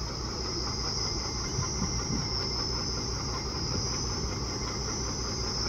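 Steady high-pitched chirring of insects, slightly wavering but unbroken, over a low, even rumble.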